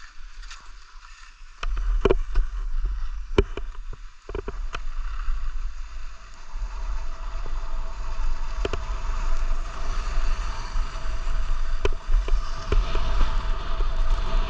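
Skis sliding and scraping over groomed snow at speed, with low wind rumble on the microphone that comes and goes.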